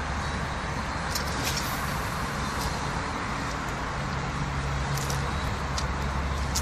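Steady hum of city road traffic, with a low drone underneath and a few faint light clicks.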